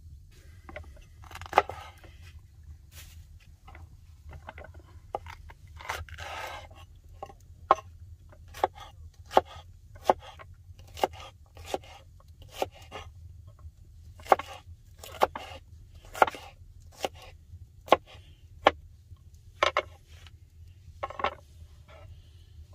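Knife chopping tomatoes on a wooden cutting board: a long, irregular string of sharp knocks of the blade on the board, with some scraping between them.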